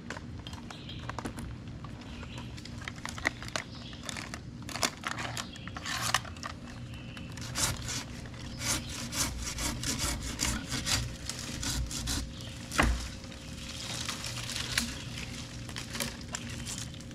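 Hand pruning saw cutting into a limb of a dead maple, in a run of quick, uneven push-pull strokes that grow denser and stronger about five seconds in.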